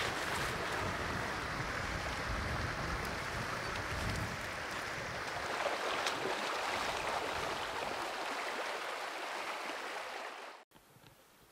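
Shallow rocky creek running steadily, with wind rumbling on the microphone over the first few seconds. The sound drops away abruptly near the end.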